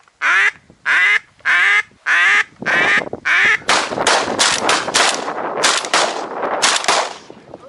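Loud mallard-type duck quacking: a series of evenly spaced quacks, each falling in pitch, about one every 0.7 seconds. About two and a half seconds in, it breaks into a fast, dense run of quacks that stops shortly before the end.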